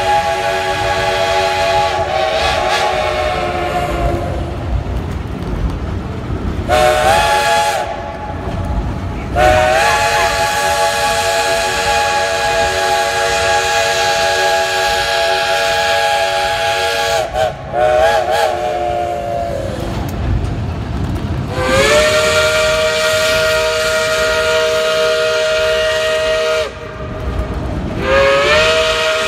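Steam locomotive's multi-note chime whistle sounding a series of long blasts with short gaps between them. Each blast slides up in pitch as it opens before settling into a steady chord, over the low rumble of the moving train.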